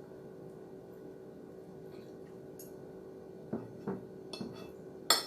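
Steady low hum, then a utensil clinking against a dish several times in the last couple of seconds as a serving of fish escabeche is taken to be tasted, the loudest clink near the end.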